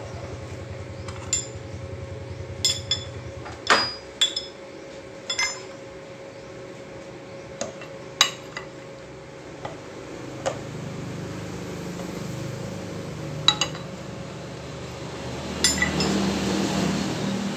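Steel parts and tools clinking and knocking as they are handled at a milling machine vise and in a pail of metal pieces, about fifteen sharp clinks scattered irregularly, over a steady low hum. Near the end a louder scraping noise rises.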